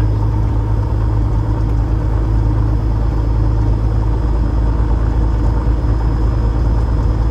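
Van's RV-10 light aircraft's piston engine and propeller running at a steady drone, heard from inside the cabin.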